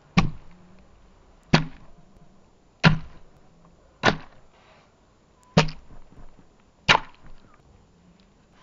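A round stone struck down hard six times, about once every second and a half, onto small green sour plums on a wet wooden board, smashing them open. Each blow is a sharp knock with a low thud under it.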